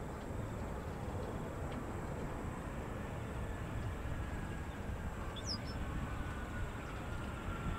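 Boeing 737-800 rolling out on the runway after landing, its CFM56 jet engines giving a steady distant rumble. A faint whine slowly falls in pitch through the second half, and a single short high chirp comes about halfway through.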